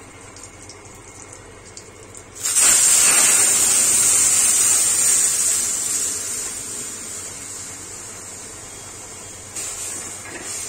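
Cooked dal poured into a wok of hot oil with fried spices and a dried red chilli: a sudden loud sizzle about two and a half seconds in that slowly dies down. Before it the tempering sizzles faintly, and near the end a spatula clatters in the wok as the dal is stirred.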